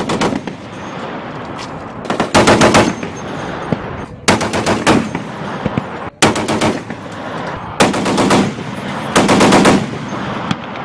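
M2 .50-calibre heavy machine gun firing about six short bursts of several rounds each, spaced one and a half to two seconds apart, with the reports echoing between bursts.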